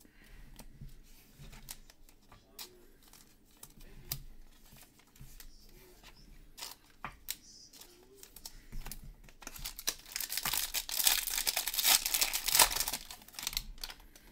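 Light clicks and handling noises, then, about ten seconds in, a few seconds of loud tearing and crinkling as a foil trading-card pack wrapper is ripped open.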